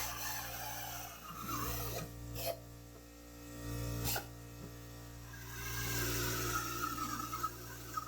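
Small pneumatic air drill running in several bursts, a whine over air hiss, drilling holes into a steel vehicle frame rail, with a few sharp clicks between bursts.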